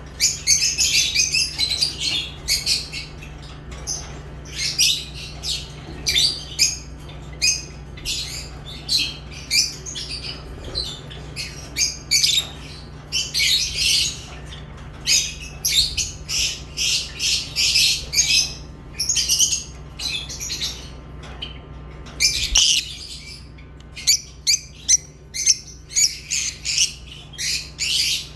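Pet lovebirds chirping and squawking in rapid, shrill runs of short calls, over a steady low hum.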